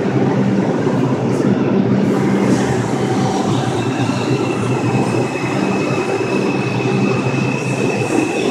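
Bombardier R142 subway train pulling out of the station and picking up speed as its cars run past. A steady high-pitched squeal joins about three and a half seconds in.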